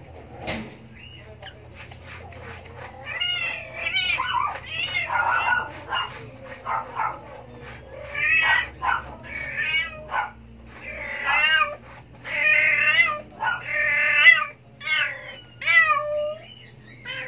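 Very young kittens mewing: a run of high, wavering cries, one after another, starting about three seconds in and going on until near the end.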